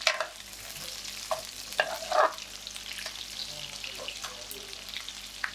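Chicken pieces with bell pepper and onion sizzling in oil in a metal frying pan, with a metal ladle scraping and clinking against the pan several times as it stirs.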